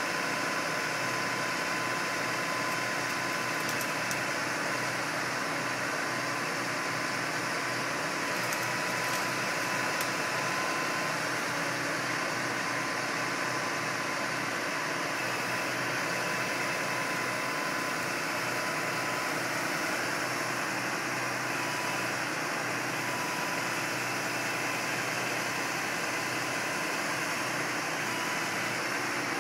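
Knuckle boom truck's engine running steadily, powering the hydraulic grapple crane that is picking up brush, with a steady high whine over the engine noise.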